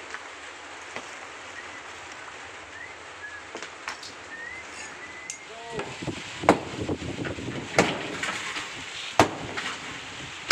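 A hammer knocking down a concrete bathroom wall: three heavy blows about a second and a half apart in the second half, with broken concrete crumbling and falling between them. Before that, a steady hiss of rain with a few short bird chirps.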